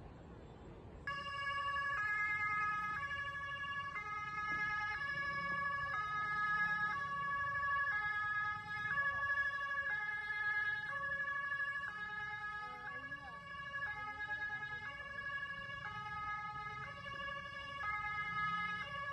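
Emergency vehicle siren in a two-tone high-low pattern. It starts about a second in and switches pitch roughly every half second.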